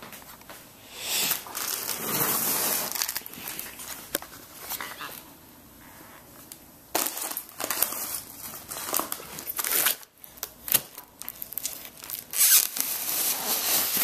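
Cardboard box and plastic wrapping being handled and pulled open: crinkling and rustling in irregular bursts. The louder bursts come about a second in, around seven seconds and near the end.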